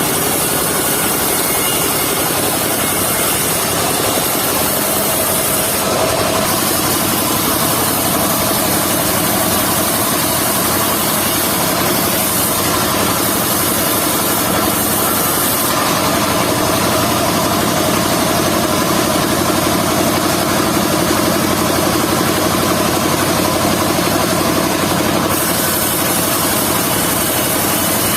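Engine of a mobile circular sawmill running steadily, with a shift in its tone about six seconds in and again around sixteen seconds in.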